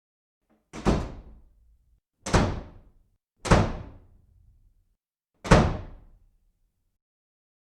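Four heavy slams spaced one to two seconds apart, each dying away within about a second.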